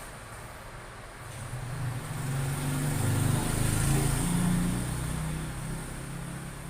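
A motor vehicle passing by: its engine hum swells over a couple of seconds, peaks in the middle, then fades away.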